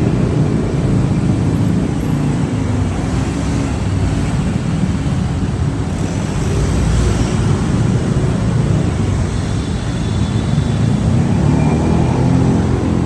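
Dense city road traffic: car and bus engines running together in a steady, loud, low-pitched wash of noise, with no single vehicle standing out.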